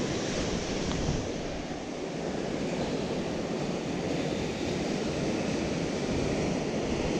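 Ocean surf breaking on the rocks at the foot of a sea cliff, a steady wash of rushing water, with wind buffeting the microphone.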